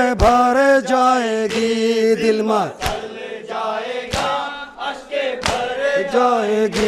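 Muharram nauha (mourning lament) chanted by a lead male voice through a microphone, with a group of men chanting along. Sharp slaps of hands striking chests (matam) land several times at irregular intervals.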